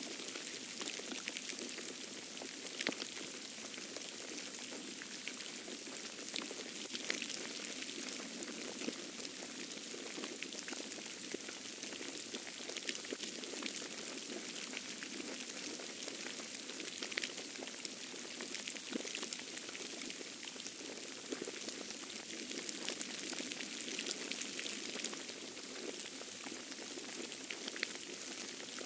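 Falling snow pattering densely and steadily close by during a snowstorm: an even hiss dotted with fine ticks, with no pause.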